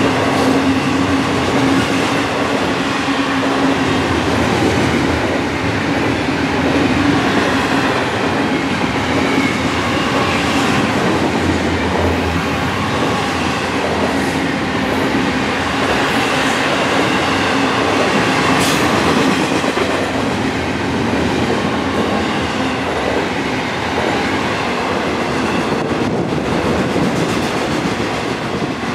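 A Florida East Coast intermodal freight train rolling steadily past, its wheels running on the rails without a break. A faint steady tone rides over it for the first few seconds.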